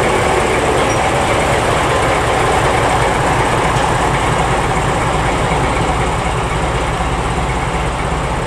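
Class 14 diesel-hydraulic locomotive's Paxman Ventura diesel engine running steadily and loud as the locomotive moves slowly along the platform.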